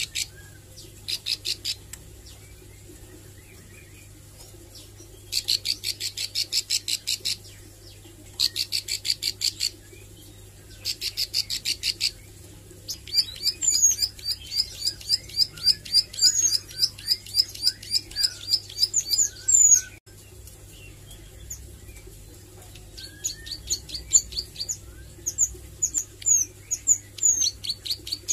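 Plain prinia (ciblek sawah) singing: several short bursts of rapid, evenly repeated high notes, each a second or two long. From about halfway, a longer, faster run of varied chirps with upward flicks follows, then more chirping near the end. The bird is a learner still practising its song and rapid 'nembak' runs.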